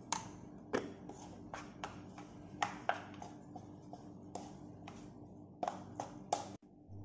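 A hand mixing cooked rice in a bowl to season it, with irregular light taps and clicks of fingers and bowl, about two a second, over a faint steady hum.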